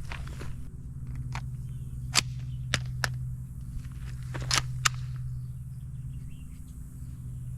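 Sharp metallic clicks, about seven of them at irregular intervals, as 9mm cartridges are loaded into a gun, over a steady low hum.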